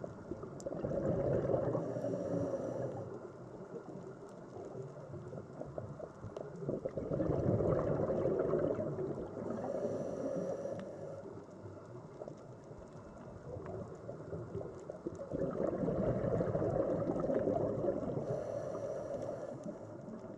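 Sea water surging in slow swells, one about every eight seconds, each rising and ebbing with a crackling wash.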